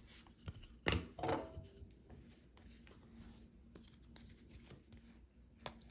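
Trading cards being handled and slid over one another, with a sharp snap about a second in, a brief scrape after it and light rustling and ticks.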